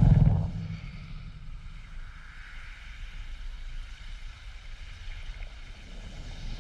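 Processed sound-design drone: a loud low rumble dies away in the first half second, leaving a sustained airy hum with faint steady high tones over a low rumble.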